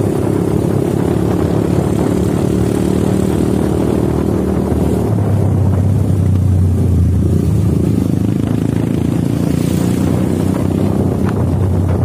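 Motorcycle engine running steadily at riding speed. About five seconds in, the engine note changes and drops lower.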